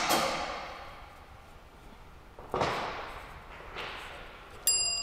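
Three sharp knocks on metal, each trailing off over about a second, then a click near the end that leaves a short, high metallic ring.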